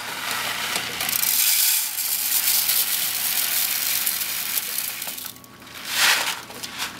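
Dry sushi rice grains pouring from a paper bag into a glass measuring cup, a steady hissing rush for about five seconds, then a shorter burst about six seconds in.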